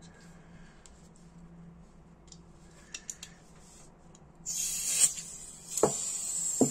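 Butane gas hissing loudly from a refill can into a Dupont lighter, starting about two-thirds of the way in, with a high whistle in the hiss. Sharp metallic clicks from the lighter come near the end.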